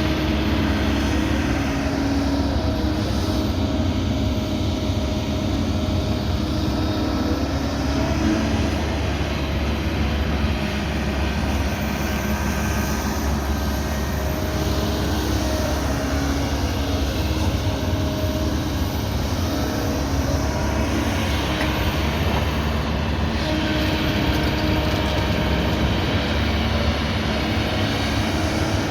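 Kobelco 220 excavator's diesel engine running steadily.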